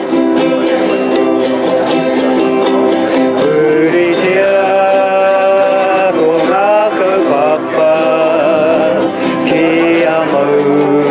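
A small group singing a Māori-language song, accompanied by several strummed ukuleles and an acoustic guitar in a steady rhythm.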